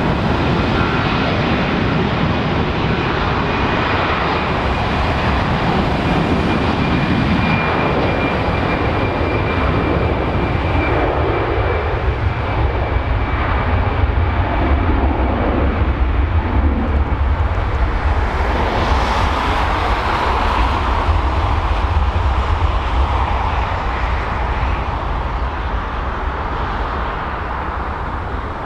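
Airbus A320-214's twin CFM56-5B turbofan engines running at takeoff power as the airliner rolls down the runway and away. It is a loud, steady jet noise with a deep rumble underneath and a thin high whine over the first half, easing slightly near the end.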